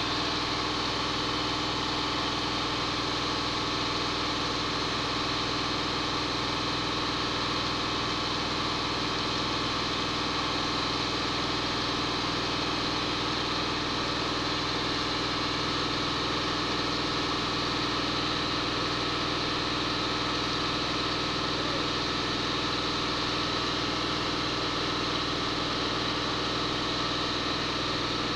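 Concrete mixer truck's diesel engine running steadily, turning the drum as it discharges concrete down the chute.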